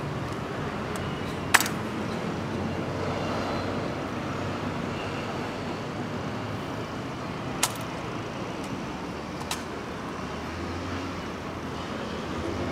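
Three sharp clacks from an honor guard's rifle drill as the rifle is raised and handled, the first about a second and a half in the loudest, over a steady hum of traffic.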